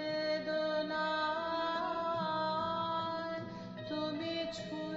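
Background music: a slow melody of long held notes over a steady lower accompaniment.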